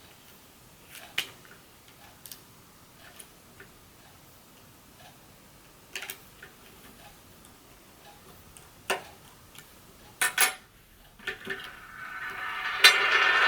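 Small repair tools and phone parts clicking and tapping lightly and sparsely during an iPhone screen replacement, with a louder rustling scrape building up near the end.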